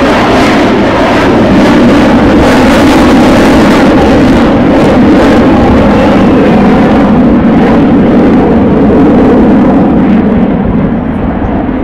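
Avro Vulcan's four Rolls-Royce Olympus turbojets at display power: loud, steady jet noise. The hiss on top thins out in the second half as the bomber climbs away.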